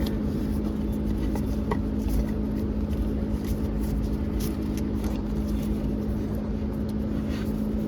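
Steady machine hum with one constant low tone, and a few faint clicks and taps on top.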